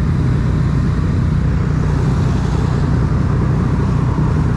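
Motorcycle running while being ridden, its engine drone mixed with steady wind rumble on the microphone.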